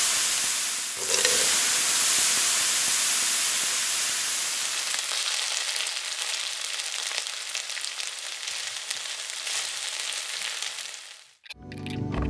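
Hairy crabs sizzling loudly in a hot wok, a dense frying hiss that dips and surges again about a second in, then slowly dies down before stopping abruptly near the end.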